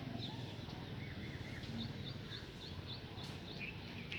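A small bird chirping: a quick run of short, high notes, about five a second, over a steady low background rumble.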